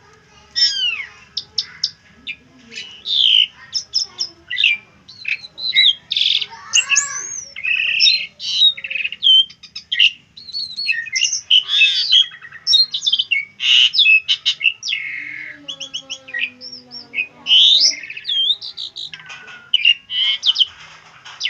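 Asian pied starling (jalak suren) singing a long, varied song of clear whistles, sweeping slurred notes and harsh chattering phrases, delivered in quick bursts with short gaps.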